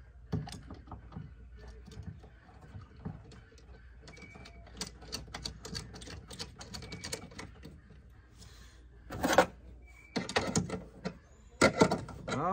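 Scattered light clicks and taps of hand work on an LED light's wiring and hardware on an aluminum jon boat's bow deck, with a few louder bursts of handling noise from about nine seconds in.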